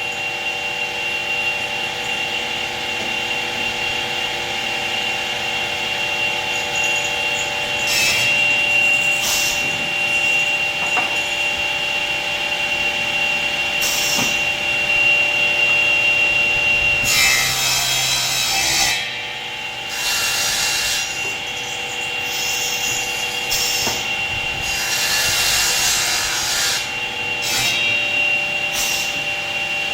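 Motors of a combination woodworking machine running with a steady whine, while wood is fed into its cutter in repeated passes. Each pass adds a rasping, sawing noise of its own.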